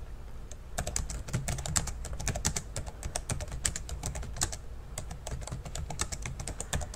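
Typing on a computer keyboard: quick, irregular keystrokes, several a second, starting about a second in as a line of text is typed.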